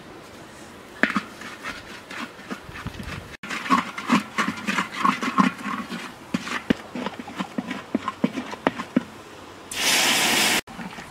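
Crackling and popping in a hot iron wok over a wood fire, then near the end a loud sizzling hiss lasting about a second.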